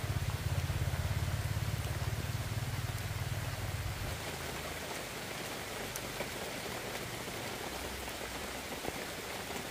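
An engine running with a low, even throb that fades away about four seconds in, leaving a steady watery hiss.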